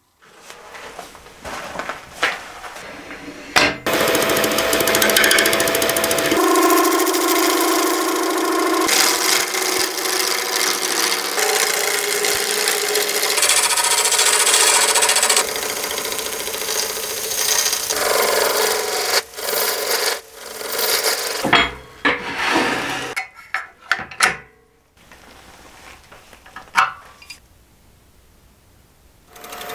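Turning tools cutting into a blank spinning on a wood lathe: a harsh scraping as the chisel takes shavings. The cutting stops and starts several times, with a quieter stretch near the end.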